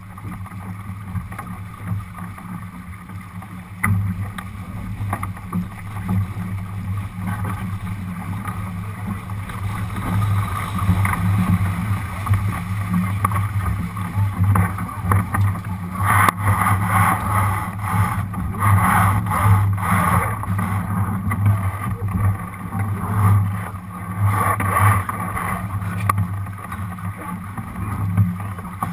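Water rushing along a Lightning sailboat's hull under sail, with wind buffeting the microphone as a steady low rumble. The rushing swells into louder, irregular surges for about ten seconds from just past halfway.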